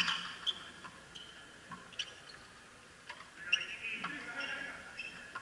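Frontenis ball cracking off racquet strings and the fronton wall: a handful of sharp, separate strikes a second or more apart, with short high squeaks between them.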